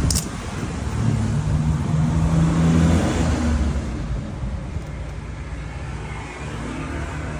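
A motor vehicle engine running, swelling over the first three seconds and then easing off, with a short click right at the start.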